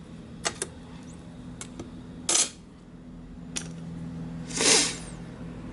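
Light clicks and taps of small tools and clay pieces being handled on a work surface, with two short rustling sounds, over a faint steady hum.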